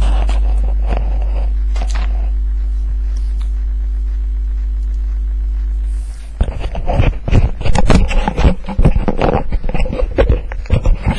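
Steady low electrical hum, then from about halfway through a loud run of irregular scrapes and knocks.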